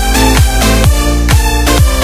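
Electronic dance music with a steady kick drum, about two beats a second, under sustained synth tones.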